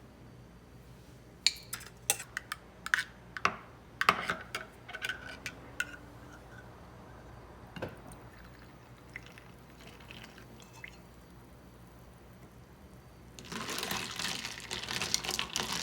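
A series of light clicks, knocks and clinks of small objects being handled, then a couple of seconds of steady rushing noise near the end.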